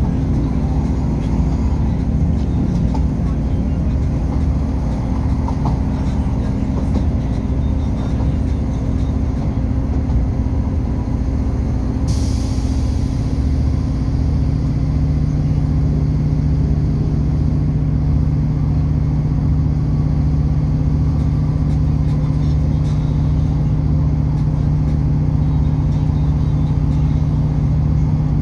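Passenger train running, heard from inside the carriage: a steady low rumble with a repeating beat underneath. About twelve seconds in there is a brief hiss, and a steady low hum sets in just after.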